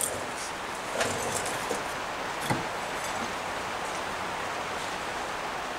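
Heavy rain pouring down, a steady hiss, with a couple of light knocks from handling metal engine parts about one and two and a half seconds in.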